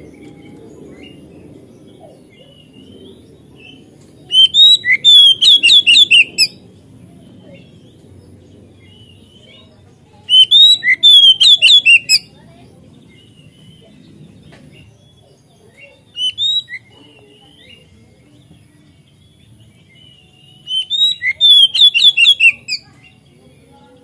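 Oriental magpie-robin (kacer) singing loud phrases of quick, clear, ringing notes. There are four phrases, each about two seconds long except a short third one, with pauses between them.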